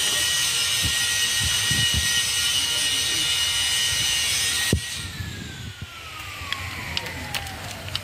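A power tool's motor running with a loud hiss and a steady whine, switched off just before five seconds in. Its whine then falls steadily as it spins down, and a few light metallic clicks follow near the end.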